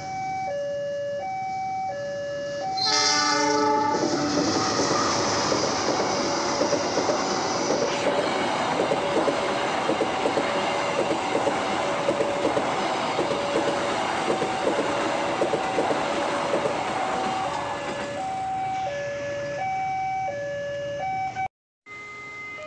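Level-crossing warning bell sounding an alternating two-tone pattern, with a train horn blast about three seconds in. A passenger train hauled by a CC 206 diesel-electric locomotive then passes with a steady rumble and rapid wheel clicks over the rail joints for about fifteen seconds, the warning tones continuing under it.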